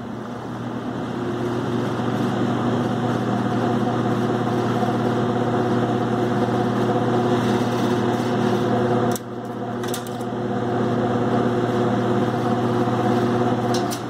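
Vintage McGraw Edison Happy Home 20-inch box fan spinning up on its final test after repair, running with a steady hum and rush of air. About nine seconds in there are clicks and a sudden drop in level before it picks up again, and another click comes near the end.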